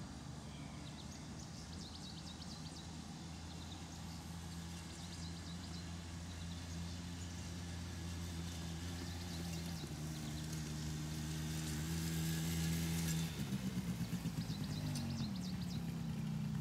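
Four-wheeler (ATV) engine running and growing steadily louder as it approaches. In the last few seconds its pitch wavers up and down as it passes close.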